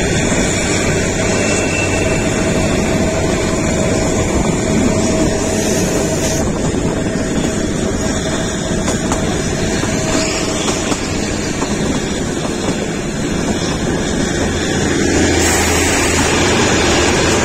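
Kalka–Shimla narrow-gauge toy train running along the track: a steady, loud rumble and rush of noise, growing a little louder near the end.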